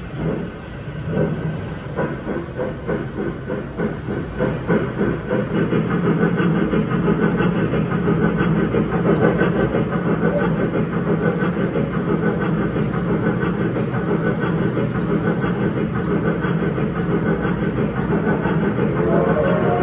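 Electric mall train playing its steam-locomotive chugging sound effect as it pulls away. The chuffs start about two a second and quicken into a steady chugging after a few seconds.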